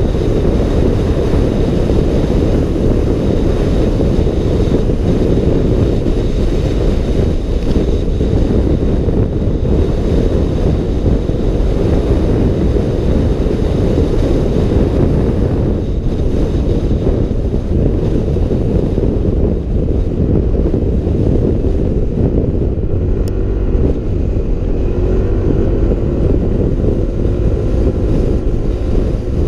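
Steady wind rush over a helmet camera's microphone while riding a Yamaha NMAX scooter at road speed, with the scooter's engine and road noise mixed in underneath.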